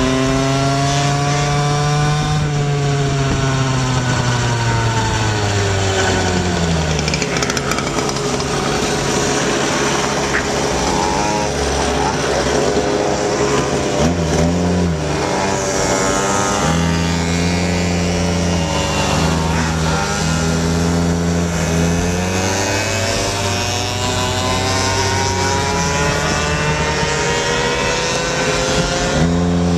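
Gas Go-ped scooters' small two-stroke engines running while ridden, the pitch rising and falling again and again as the throttle is opened and eased off.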